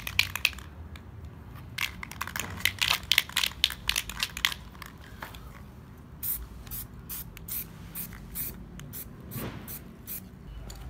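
Aerosol spray paint can being shaken, its mixing ball rattling rapidly, then a series of short spray bursts hissing out as black paint is sprayed.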